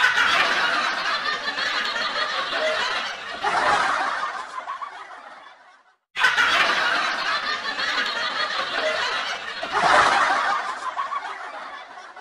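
Canned audience laughter played twice in a row, each round about six seconds long, swelling and then fading away.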